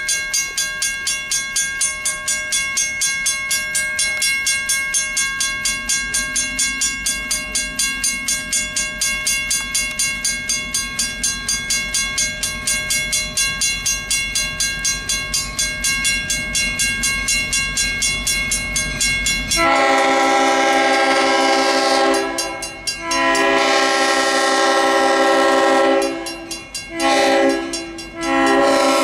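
A grade-crossing bell rings steadily while a diesel locomotive approaches, its low engine rumble building. About two-thirds of the way in, the EMD CF7's Leslie RS3L three-chime horn sounds the grade-crossing signal: two long blasts, a short one, then a long one that carries on.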